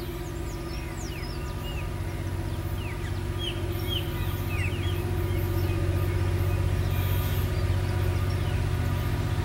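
Diesel locomotive engine running steadily under load as the train approaches, its low hum slowly growing louder. Small birds chirp over it during the first few seconds.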